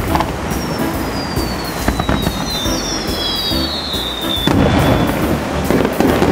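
Fireworks going off: several high whistles overlap, each sliding down in pitch over a few seconds, among sharp pops. About four and a half seconds in, shells burst louder with booms and crackle.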